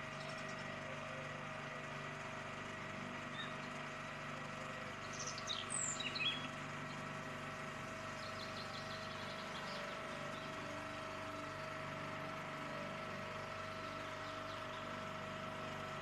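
A small boat's motor running at a steady pitch while under way on calm water. A few short, high bird calls sound over it about five to six seconds in, the loudest moment.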